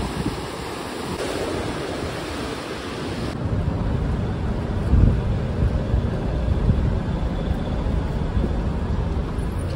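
Ocean surf washing and wind for the first few seconds. After a cut about three and a half seconds in, the surf hiss is gone and a low, uneven rumble takes over.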